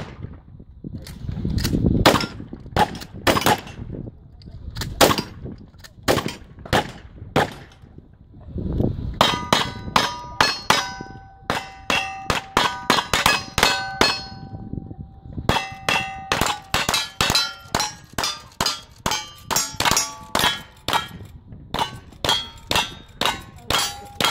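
Competitive rapid gunfire from two shooters, revolver and long-gun shots hitting steel plate targets. Each hit rings with a metallic clang. Shots are spaced at first, then come in fast overlapping strings from about nine seconds in, with steady ringing between shots.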